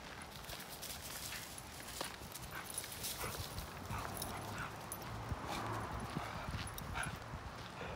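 Light, irregular footsteps and rustling in dry leaves on a paved lane as a person walks a small dog on a leash. A low steady hum comes in about halfway.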